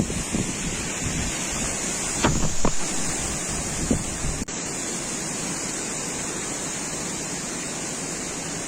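Strong wind rushing and buffeting the microphone in gusts, with a brief dropout about halfway through.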